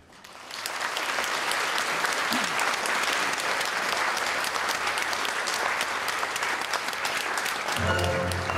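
Audience clapping, swelling within the first second and then holding steady as a dense patter of claps. Near the end, orchestral waltz music with strings and low bass notes starts under the applause.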